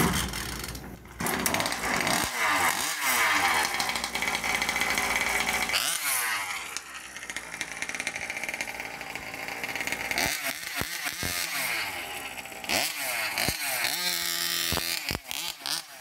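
36cc Rovan two-stroke gas engine of a large-scale RC buggy running and revving as the car drives, the revs rising and falling over and over. In the second half the throttle is let off several times, so the engine note drops out briefly between revs.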